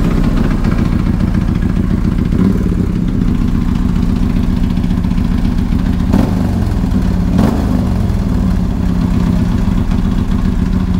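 Moto Guzzi MGS-01 racing motorcycle's 1225 cc V-twin, just started, idling steadily and running well. It is given three short throttle blips, one about two and a half seconds in and two close together past the middle.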